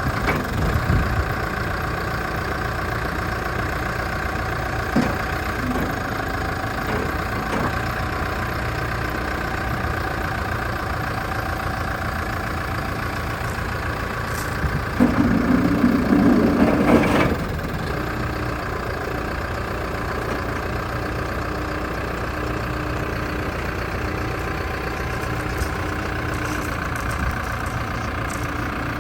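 New Holland B95 loader backhoe's diesel engine idling steadily, with a few knocks near the start. About halfway through, a louder, strained stretch of about two and a half seconds rises over the idle, then drops back.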